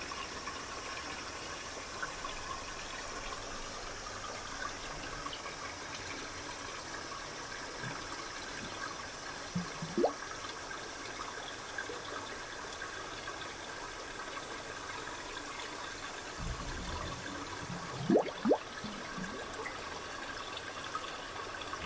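Steady water noise of a goldfish aquarium's circulating, aerated water, with a few short rising blips: one about ten seconds in and two close together near the end.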